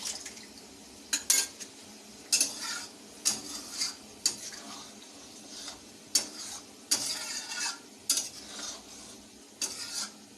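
A spoon stirring and scraping thick curry gravy in a cooking pan: about a dozen irregular scrapes and clinks against the pan, with a faint steady sizzle underneath.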